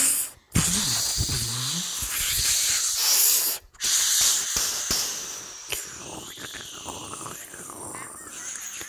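Loud hissing sound effect, cut off twice for a moment, with a low sliding tone under it in the first two seconds; it gives way to quieter scattered sounds about four seconds in.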